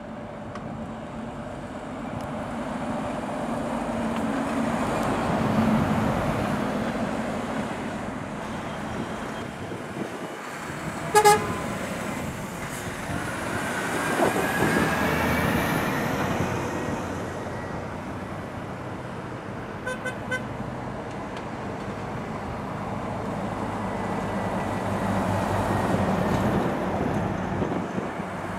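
Heavy lorries driving past with diesel engines running, the rumble swelling and fading as each one passes and rising in pitch around the middle as one pulls away. A short loud horn toot about eleven seconds in, and a quicker double toot around twenty seconds.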